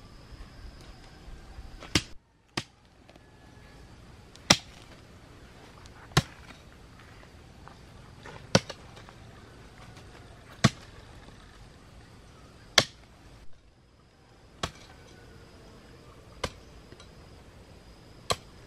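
A blade chopping in single sharp strikes, about one every two seconds, around eleven in all.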